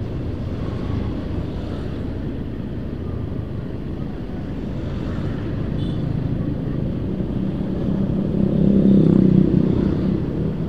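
Ride on a motorcycle through town traffic, heard from the bike: a steady low rumble of engine and road noise, swelling louder with a steady engine hum about eight seconds in and easing off near the end.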